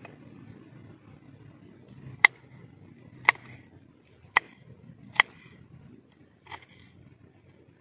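Kitchen knife chopping a green chilli on a wooden chopping board: five sharp knocks of the blade striking the board, about a second apart, the last one softer.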